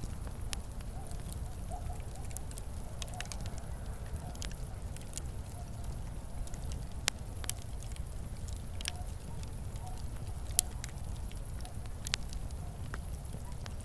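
Wood fire crackling in a fireplace: scattered sharp pops and snaps over a low steady rumble, with one louder pop past the middle.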